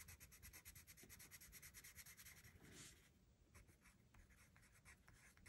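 Faint scratching of a colored pencil shading back and forth on paper in quick, even strokes, thinning out about three seconds in.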